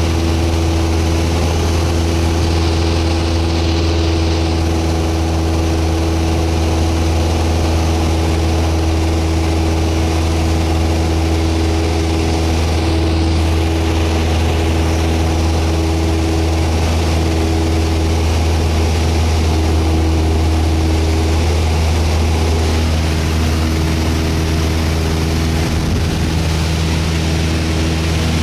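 Piston engine and propeller of a single-engine high-wing light aircraft droning steadily in flight, heard from inside the cockpit.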